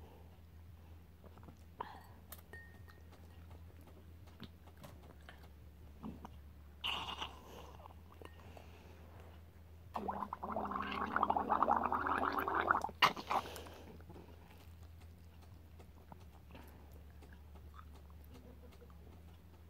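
Milk being drunk through a straw from a glass: a few faint sips, then about three seconds of loud gurgling slurps through the straw starting around ten seconds in, ending with a sharp click.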